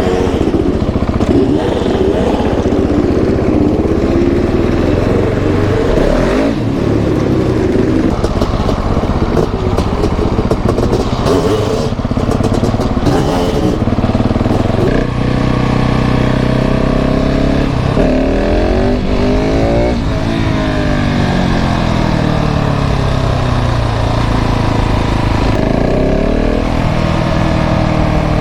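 KTM 690 SMC R single-cylinder four-stroke engine through a full LeoVince exhaust, pulling away and riding, its revs rising and falling repeatedly through acceleration and gear changes.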